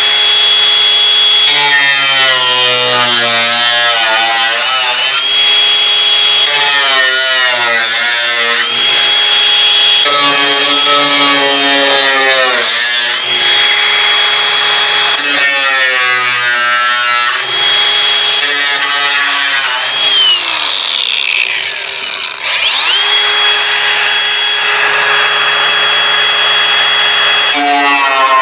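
High-speed electric cutoff tool cutting through the truck's sheet-metal door jamb. Its steady high whine sags and wavers in pitch each time the wheel bites into the metal, then climbs back when it eases off. About twenty seconds in, the tool spins down. It starts up again about two seconds later.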